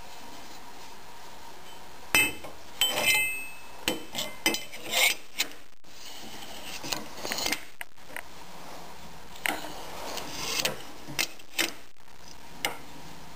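Scattered metal clinks, knocks and scraping as the steel arm of a homemade pipe bender is handled and turned on its pivot against the aluminium former. A couple of the clinks about two to three seconds in ring briefly.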